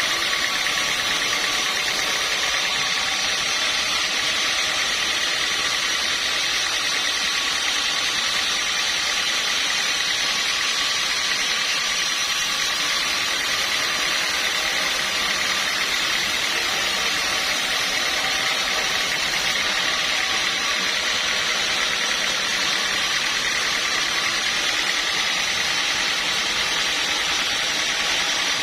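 Sawmill machinery running steadily: an even, unbroken mechanical noise with a steady high whine.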